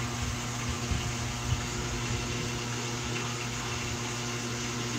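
Steady hiss with a low electrical hum under it, like a small fan or appliance running, with a soft low bump about one and a half seconds in.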